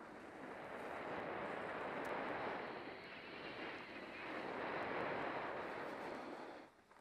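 Skis hissing and scraping over packed snow during a fast downhill run, mixed with wind rushing over the action camera's microphone. The noise swells and eases with the turns and briefly drops away near the end.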